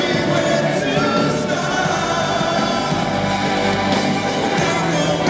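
Live rock band playing loud with a male lead singer: drums, bass and keyboards under the vocal.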